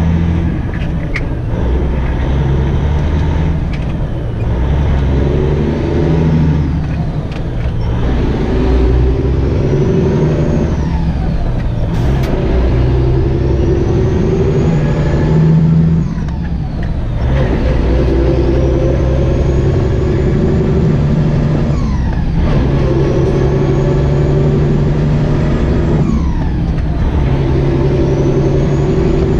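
Diesel engine of a semi truck pulling a loaded grain hopper trailer, accelerating and shifting up through the gears. Its whine climbs for several seconds, then drops sharply at each shift, five times over.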